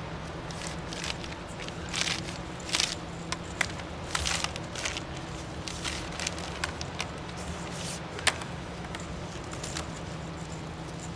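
Plastic rustling and crackling as rolled PEX water line and blue plastic sleeving are handled and pulled into place, in irregular short bursts. A steady low hum runs underneath.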